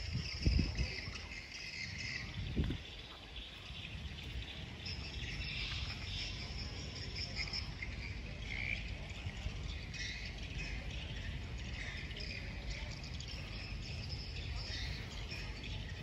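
Outdoor insects calling in a high, steady buzz that comes and goes, with bird chirps mixed in, over a low rumble; a few low thumps sound in the first three seconds.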